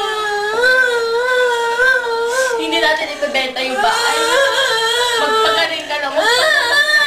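A woman singing in long, wavering held notes, with little or no accompaniment.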